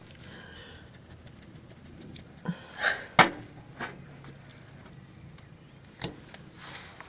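Tableware handling: a run of light rapid clicks, then a few sharp knocks of a fork against a plate, the loudest about three seconds in.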